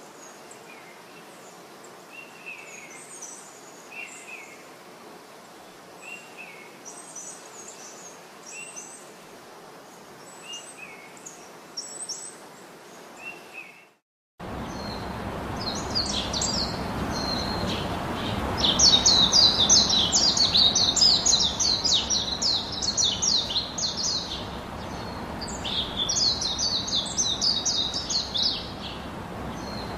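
Small birds chirping again and again over a steady background noise. About halfway through the sound cuts out for a moment, then comes back louder, with thicker, faster chirping.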